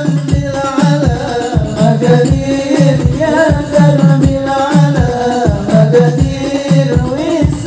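Hadroh ensemble performing sholawat: male voices singing a melodic devotional line over rebana frame drums, with a low drum stroke about twice a second.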